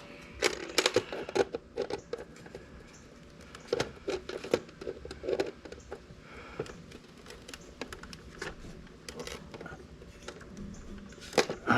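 Irregular sharp clicks and taps, some in quick clusters, of pliers and hand tools working at sharp points poking through the scooter's plastic body panel to snap them off.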